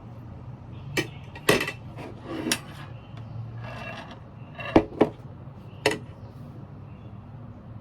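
Cutlery and dishware being handled for a meal of noodles: several sharp clicks and a few short scrapes, spread unevenly over several seconds, over a steady low hum.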